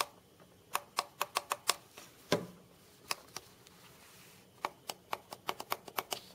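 Push-button switches on an electric throw blanket controller clicking under a fingertip, pressed again and again in groups of quick clicks, with a faster run near the end. The clicks are the switches now actuating fully, because small silicone pads stuck on top of the buttons make them taller. One duller thump comes a little over two seconds in.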